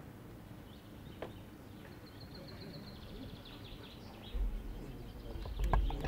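Open-air ambience of birds chirping, including a quick high trill in the middle, over faint distant voices. A sharp knock comes about a second in and another near the end, and a low rumble comes in after about four seconds.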